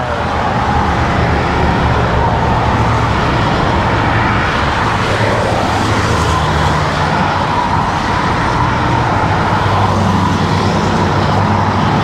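Steady road traffic noise from cars and trucks passing in the lanes alongside, mixed with wind rushing over the microphone.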